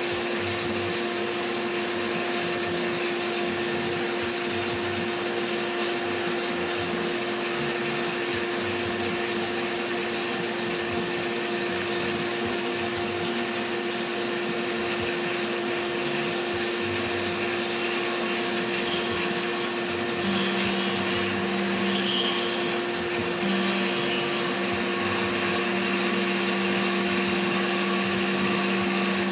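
CNC milling machine running steadily: a constant motor whine over an even hiss, with a lower hum that joins about two-thirds of the way through, drops out briefly and comes back.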